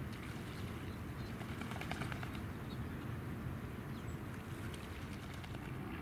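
Outdoor bird ambience: faint, scattered short bird chirps over a steady low rumble, with a brief run of quick ticks about two seconds in.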